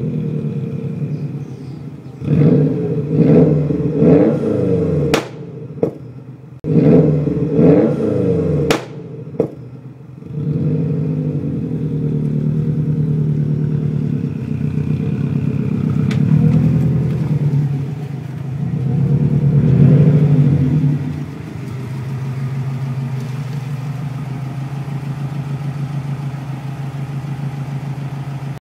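Subaru Impreza Turbo 2000's turbocharged flat-four engine running through a de-catted Hayward & Scott exhaust. It is revved hard twice, and each time the revs fall off there are sharp exhaust pops. It then settles to a steady idle with two lighter blips.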